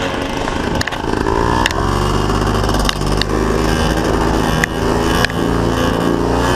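Paramotor engine running hard, its pitch rising about one and a half seconds in, with a few sharp knocks on the microphone.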